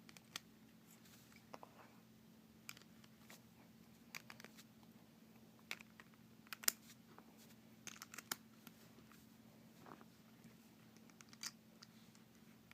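Small plastic speed-cube pieces clicking and tapping as they are fitted together by hand, a scattering of short sharp clicks at irregular intervals, the loudest just past halfway.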